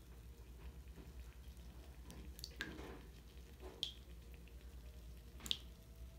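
Lush Over and Over bath bomb fizzing in bathwater: a faint fizz with three or four sharp watery plinks of bursting bubbles, over a low steady hum.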